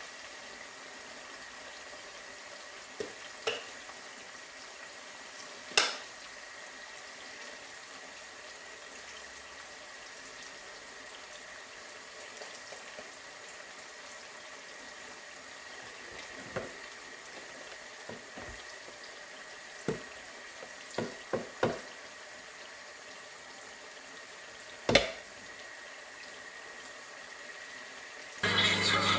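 Onions sizzling steadily in hot oil in a steel pot on a gas burner, with a few sharp metal clinks and knocks of utensils and the metal lid against the pot, the loudest about four seconds before the end. Music comes in just before the end.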